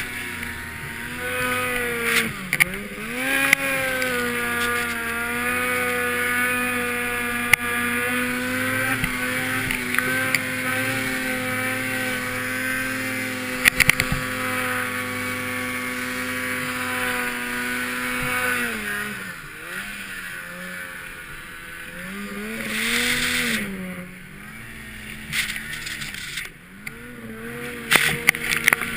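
Ski-Doo Summit XP snowmobile's two-stroke engine held at high revs while the sled ploughs through deep powder, then dropping back about two-thirds of the way through and revving up and down in shorter bursts. A few sharp knocks are heard along the way.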